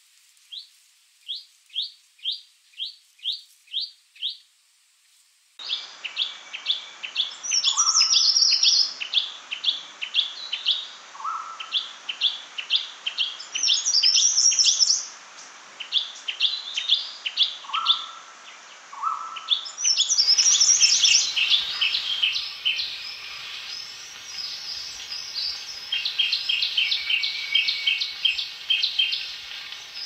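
Chestnut-fronted shrike-babbler calling: a run of eight sharp, high chip notes at about two a second, then denser series of repeated chips broken by quick, higher twittering phrases and an occasional lower note.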